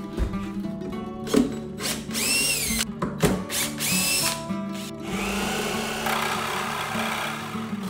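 DeWalt cordless drill run in two short bursts, its motor whine rising and falling each time, then a reciprocating saw cutting through the cart's wooden board for the last few seconds, over background music.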